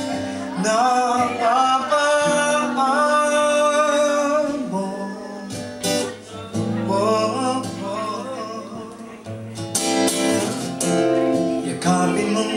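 Male voice singing a slow ballad to his own steel-string acoustic guitar. The voice drops out for a few seconds mid-way while the guitar carries on, and the singing comes back near the end.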